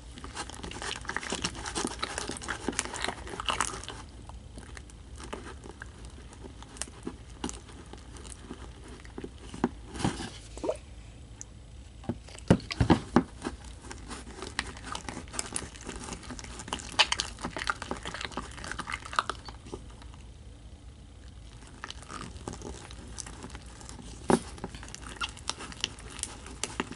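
Sticky homemade slime being mixed, making irregular wet clicks and crackles, in denser spells a few times. The slime has just firmed up and turned sticky from added contact solution.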